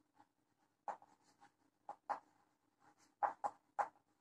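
Chalk writing on a chalkboard: about six short scratches and taps of the chalk, spaced unevenly, as a word is written.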